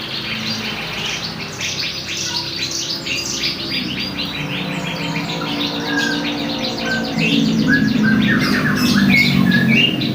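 Domestic canary singing a long run of fast trills and rapid repeated chirps, building up and getting louder toward the end.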